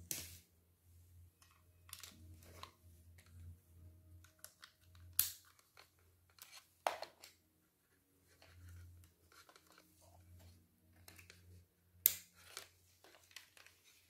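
Handling noise from a flat Ethernet cable and a plastic network cable tester being moved and plugged together by hand: scattered rustles and a few sharp clicks, the loudest about five, seven and twelve seconds in.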